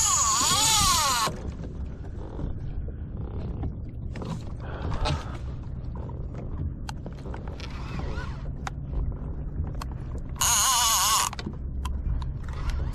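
Conventional fishing reel's drag buzzing as a hooked fish pulls line off: one burst of about a second and a half at the start, another of just under a second near the end. Quieter reel winding and creaks come in between.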